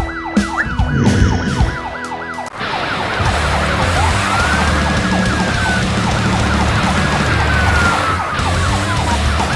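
Emergency vehicle siren in a fast yelp, its pitch sweeping up and down several times a second. About two and a half seconds in the sound grows fuller, with a slower wailing glide over it and a low rumble underneath.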